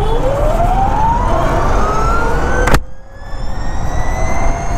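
Ather 450X electric scooter's motor whine rising steadily in pitch as it accelerates hard from a standstill, over low wind rumble. A sharp click comes a little under three seconds in, after which the whine carries on higher and fainter.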